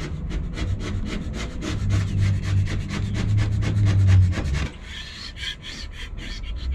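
Hand paint scraper dragged in quick repeated strokes along a boat hull, scraping off antifouling bottom paint softened by a chemical stripper. The rasping strokes come several a second, then thin out to a few lighter strokes about two-thirds of the way through.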